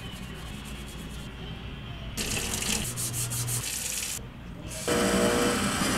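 Wet scrubbing on a watch dial in two bursts, one about two seconds in and a louder one near the end, as the old print is stripped off with thinner-soaked cloth. Soft background music runs underneath.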